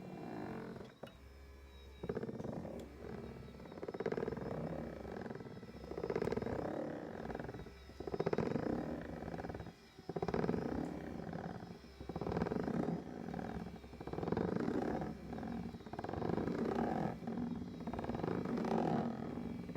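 Doctor Air 3D massage seat's massage mechanism running with an abnormal noise that swells and fades about every two seconds as the rollers travel. This is the fault noise the owner is recording, which he says now comes on the downward stroke as well as the upward one.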